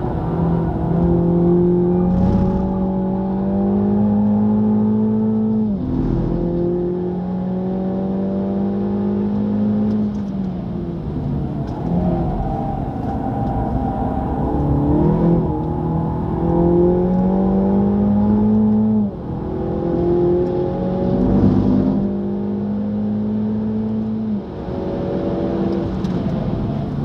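Mini John Cooper Works GP's turbocharged four-cylinder engine at full throttle on a racing lap, heard from inside the cabin. Its note climbs steadily through each gear and drops sharply at each upshift, about four times, with a brief dip and wobble midway as the car brakes and downshifts for a corner.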